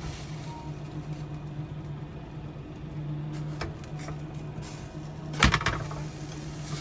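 Steady hum of a vent fan with a low, even tone, and about five and a half seconds in a loud clatter of the pan as the pan-fried pizzadilla is flipped over in it.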